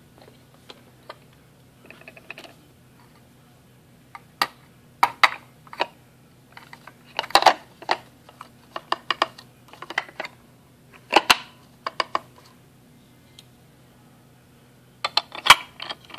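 Plastic parts of a Braun Citromatic citrus juicer clicking and clattering as they are handled and fitted together: the bowl, spindle and ribbed reamer cone knocking against each other in irregular bursts, loudest about seven, eleven and fifteen seconds in.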